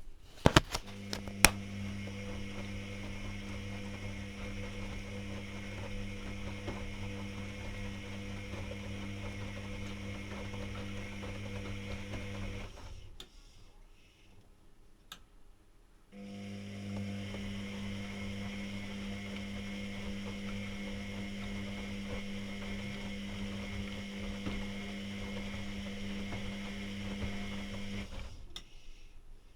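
Privileg Classic 30612 washing machine's drum motor tumbling the wash: a steady motor hum for about twelve seconds, a pause of about three seconds, then another run of about twelve seconds. A few sharp clicks come just before the first run starts.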